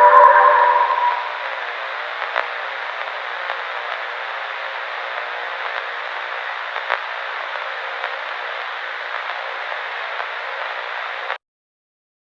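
Radio static: a steady, narrow-band hiss like an untuned receiver, with a loud tone fading out over the first second and a couple of faint clicks. It cuts off abruptly near the end.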